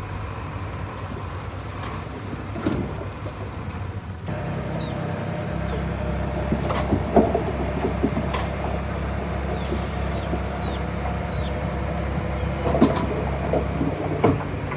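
Komatsu D31P bulldozer's diesel engine running steadily, stepping up to a higher, louder note about four seconds in and easing back near the end. A few sharp knocks sound over it.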